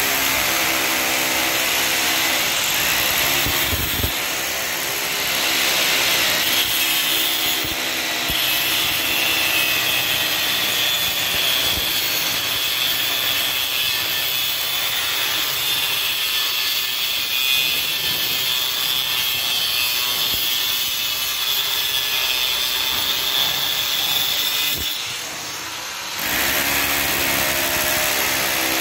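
Angle grinder with a thin cut-off disc cutting through steel rebar: a harsh, continuous grinding hiss while the disc is in the bar. At the start and again near the end the motor spins freely off the work with a steady whine.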